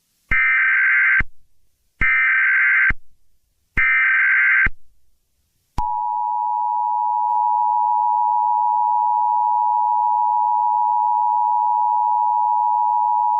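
Emergency Alert System alert tones: three roughly one-second bursts of the screeching SAME data header, a second apart, then from about six seconds in the steady two-tone EAS attention signal.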